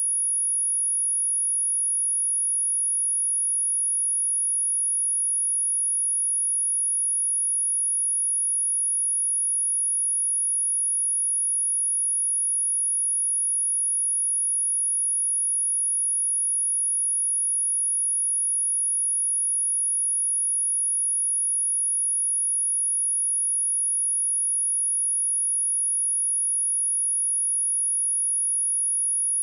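Steady pure sine-wave test tone at 10372 Hz, a single constant high-pitched whistle held without a break, used as a speaker test and speaker-cleaning tone.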